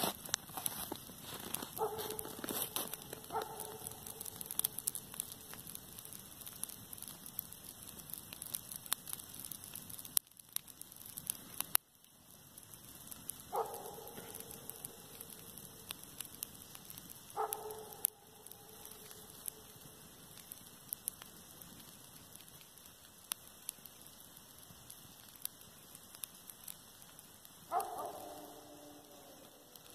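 Dry grass burning, with a steady fine crackle throughout. A dog barks five times, the last bark near the end longer and falling in pitch.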